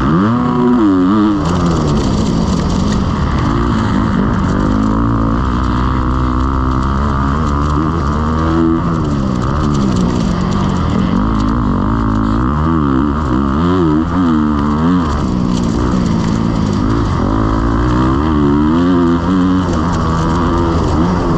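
Motocross bike engine, loud, revving up and down over and over as it is ridden hard, its pitch climbing and dropping every second or two through the throttle and gear changes.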